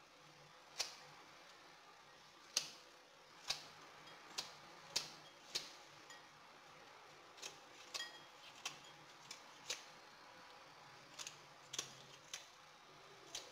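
Scissors snipping through the tough leaf tips of a globe artichoke: about fifteen short, crisp snips, irregularly spaced, roughly one every half second to second and a half.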